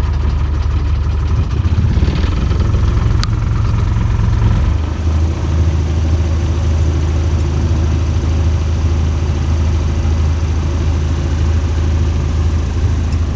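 Sailing yacht's inboard diesel engine running steadily as the boat motors along, a constant low drone whose note shifts slightly about five seconds in.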